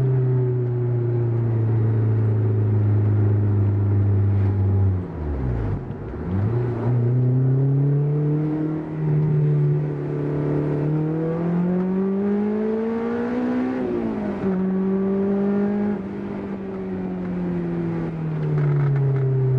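Honda S2000's 2.0-litre four-cylinder engine running through a J's Racing 70RS single-exit exhaust with a 70 mm decat test pipe. The engine note dips sharply and recovers about six seconds in, then climbs steadily to high revs. It drops suddenly at a gear change about fourteen seconds in, then falls away as the throttle eases off.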